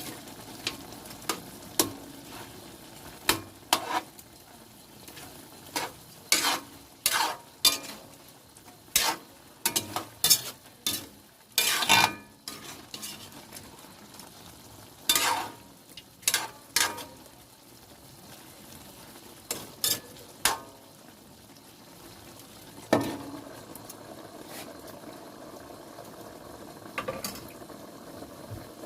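Chicken adobo being stirred in a frying pan: a run of sharp, irregular scrapes and knocks of the cooking utensil against the pan over a steady sizzle. The stirring is busiest in the middle and eases off after about twenty seconds, leaving the sizzle with only a couple more knocks.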